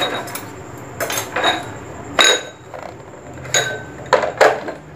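Several sharp clinks of a spoon and dishware knocking against glass and ceramic on a kitchen counter, some ringing briefly.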